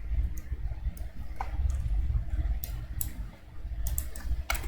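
Computer mouse clicking a few times at irregular intervals, over a steady low hum.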